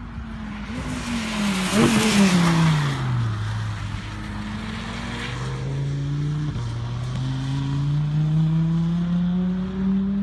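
Audi R8's V10 engine at full speed passing close by: loudest about two seconds in, its note dropping in pitch as it goes by. It then pulls away, the note climbing steadily, with a short break at a gear change about six and a half seconds in.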